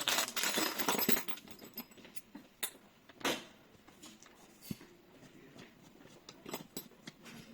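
Metal lock hardware being handled and fitted by hand: a scraping rattle in the first second, then scattered clicks and scrapes.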